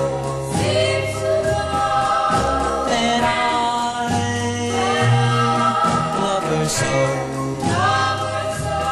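Late-1950s pop ballad record: a backing choir holds long sung notes over a bass line that moves note by note.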